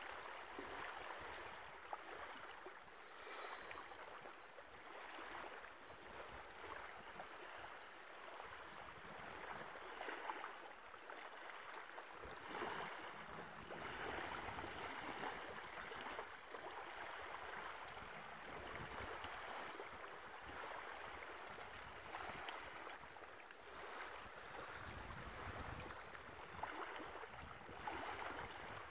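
Small waves lapping and washing on a sandy shore, a soft, uneven rush of water.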